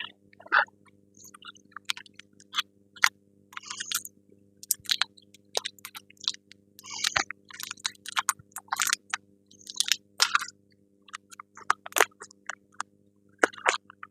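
Plastic and cardboard packaging crinkling and rustling as a new front strut assembly is unwrapped and handled. The crackles are short and irregular, over a faint steady hum.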